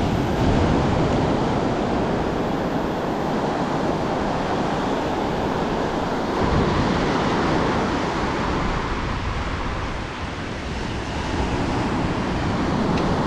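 Pacific surf: waves breaking and foam washing up the sand, a steady wash of sea noise.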